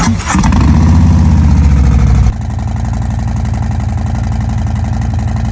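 Harley-Davidson 117 V-twin with S&S 475 cams running just after start-up, with a lumpy, pulsing idle. It runs fast and loud for about two seconds, then drops abruptly to a steadier, lower idle.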